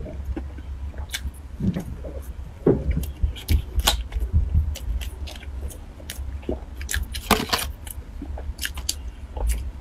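Close-miked eating and handling sounds: chewing and small mouth clicks, then a thin plastic food tray crackling as it is handled, loudest about seven seconds in. A steady low hum runs underneath.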